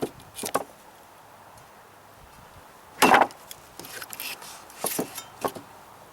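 Heavy machete with a freshly sharpened, lower-angle edge chopping into wood: a couple of light knocks, then one solid chop about three seconds in, followed by several smaller knocks and clicks.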